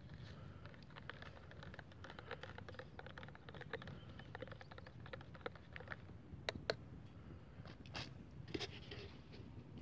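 Metal spoon stirring coffee in a plastic cup: a steady run of light scraping and clicking, with a few sharper clicks between about six and a half and nine seconds in.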